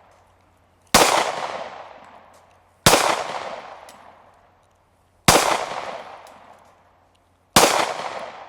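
Four single shots from a Glock 23 .40 S&W pistol, spaced about two seconds apart, each followed by a long echo fading away over a second or more.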